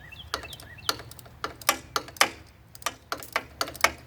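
Irregular sharp metallic clicks and clinks from a hand tool working on the bolts of a small mower engine's rocker cover, about a dozen in four seconds, the loudest two ringing briefly.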